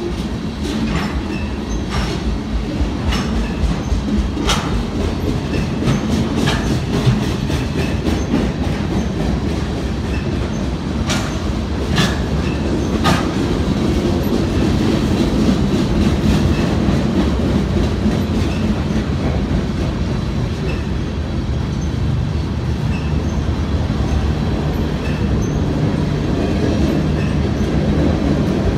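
Freight train of boxcars and refrigerated cars rolling past, its wheels clicking over the rail joints above a steady low rumble. The clicks are sharpest and most frequent in the first half.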